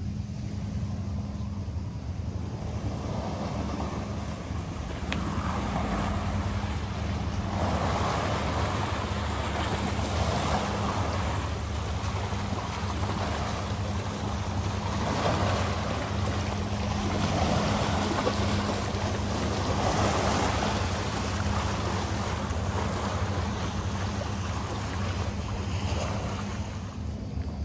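Steady low drone of a boat's engine, with a rushing of water that swells and fades every two to three seconds.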